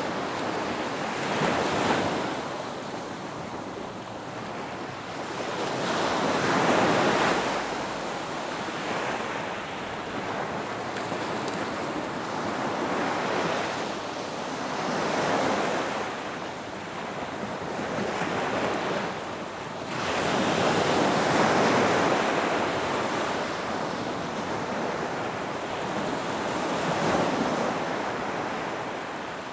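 Ocean waves breaking and washing up a beach, the surf swelling and fading every several seconds as one wave follows another.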